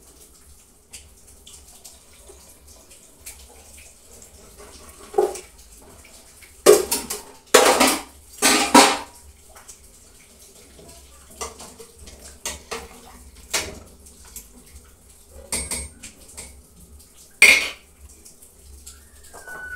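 Metal cooking pots and a spoon clanking and scraping: a cluster of loud knocks about a third of the way in, then scattered clinks and one more sharp knock near the end.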